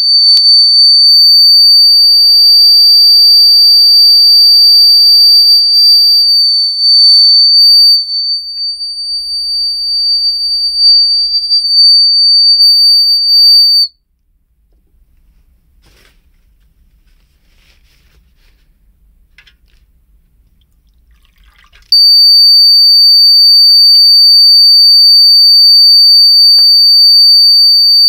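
Mini water leak alarm sounding one continuous high-pitched tone, the sign that water has reached its sensor. The tone wavers and dips for a few seconds, then cuts off about halfway through, leaving only faint clicks. About eight seconds later it starts again at full strength.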